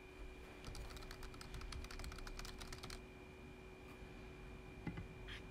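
Faint typing on a laptop keyboard: a quick run of key taps lasting about two and a half seconds, then a few scattered taps.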